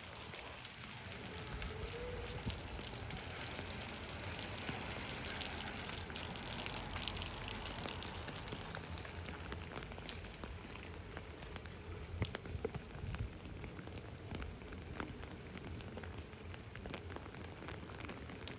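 Steady rain falling on pavement, with many small drop ticks over a low rumble. A few louder drips land about twelve seconds in.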